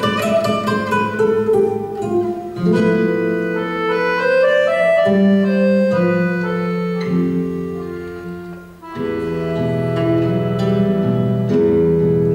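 Accordion and classical guitar duo playing a Spanish-style concert piece. Quick plucked guitar notes at the start give way to held accordion chords, which fade briefly about two-thirds of the way in and then return.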